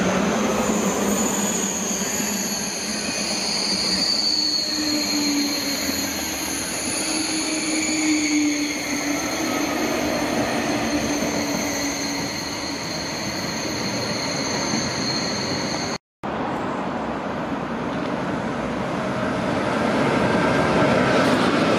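TGV high-speed trains passing at low speed: a steady rumble of wheels on rail with high whines held over it. The sound drops out briefly about 16 seconds in, then another TGV approaches and grows louder.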